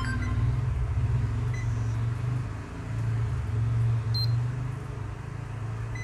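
Low steady hum throughout, with a digital multimeter's continuity buzzer chirping briefly as the probes touch a capacitor removed from the laptop board, a few seconds of intermittent beeps: the buzzer sounding means the capacitor reads as a dead short.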